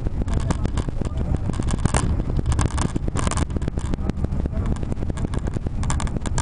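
Bus in motion on a winding mountain road, heard from inside the cabin: a steady low rumble of engine and road, with frequent sharp clicks and knocks throughout.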